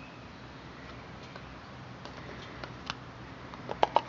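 Lucas clear plastic distributor cap being fitted back onto the distributor: a few light ticks, then a quick cluster of sharp plastic clicks near the end as it is seated and clipped on. A faint steady low hum runs underneath.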